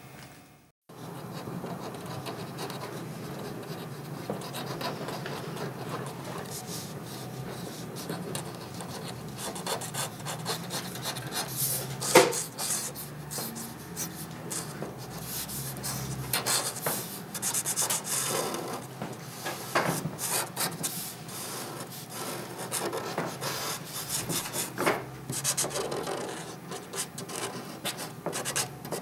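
A pen drawing on paper: the tip scratching and rubbing across the sheet in short, irregular strokes, with one sharper scrape about twelve seconds in.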